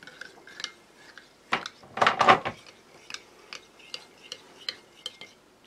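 A spoon stirring instant coffee in a ceramic mug, clinking against the inside about twice a second, with a louder run of clinks about two seconds in.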